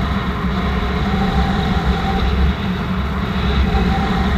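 Paramotor engine running at a steady pitch, heard up close in flight.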